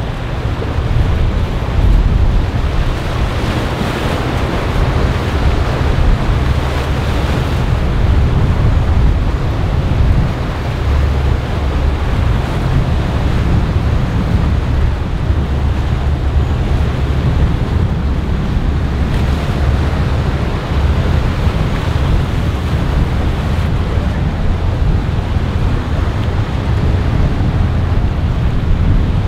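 Wind buffeting the microphone over the steady rush of waves and a large motor yacht's wake, with a constant low rumble underneath.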